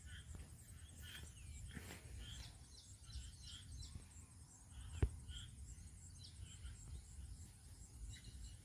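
Faint bird chirps scattered over a low background hum, with one sharp click about five seconds in.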